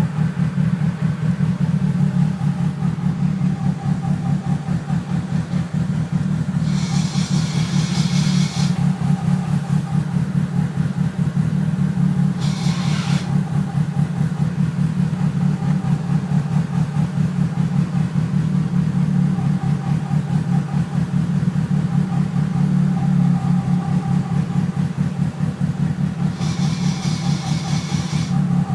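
Car engine running with a loud, fast-fluttering low noise and a steady whine over it; short high hissing sounds come in three times. This follows the fitting of a Quarter Master twin-disc clutch, and by the owner's account the noise comes only with the clutch pedal pressed.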